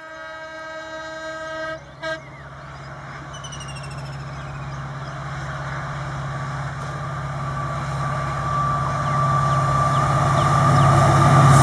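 WDG-4 (EMD GT46MAC) diesel-electric locomotive sounding its horn, which cuts off about two seconds in and is followed by one short toot. After that the locomotive's diesel engine hum and the train's running noise grow steadily louder as it approaches.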